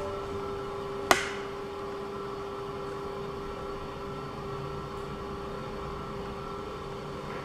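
Steady mechanical hum with a constant tone, like a machine running in the room. A single sharp click with a short ring about a second in.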